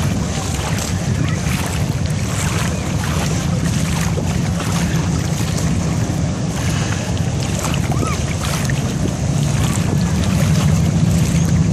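Steady wind buffeting the microphone over the wash of shallow seawater and distant surf breaking on a breakwater.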